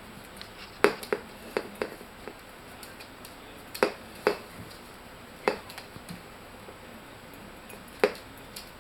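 Sharp knocks and clicks of a ceramic coffee mug rocking and bumping on a hard floor as a baby porcupine noses and pushes it. About ten irregular knocks, the loudest about a second in and near the end.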